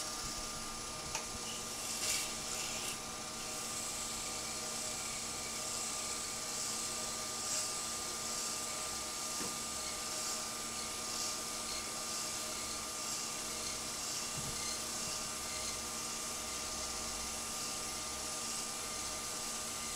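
Wood lathe running steadily with a hum, and abrasive paper hissing against a small spinning wooden finial as it is hand-sanded.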